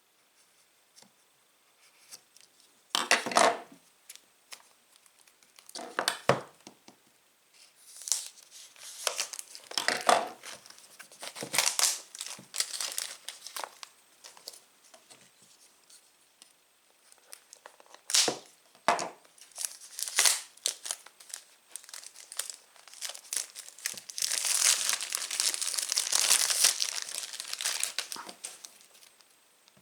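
Plastic wrapping on a phone's retail box being torn open and crumpled by hand, in irregular bursts. There is a longer stretch of crinkling near the end.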